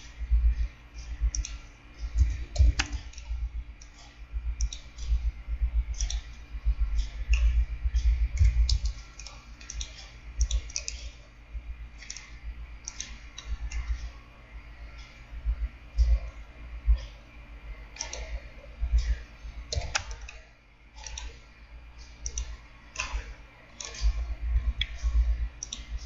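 Computer mouse clicks and keyboard key taps, irregular and close to the microphone, with dull low knocks alongside many of them.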